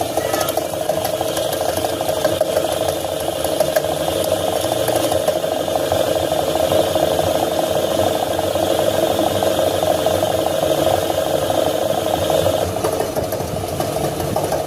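Front-load washing machine running with a steady rumble and rattle from its worn drum bearing.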